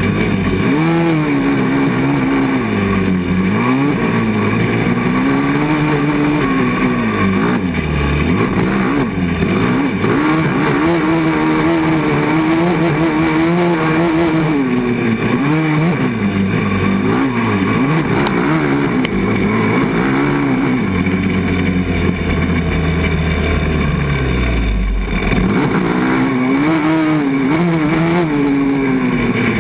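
A 450 sport quad's single-cylinder four-stroke engine running hard, its revs repeatedly rising and falling as the rider accelerates, shifts and backs off, heard close up from on the machine. A heavier low rumble comes in about two-thirds of the way through.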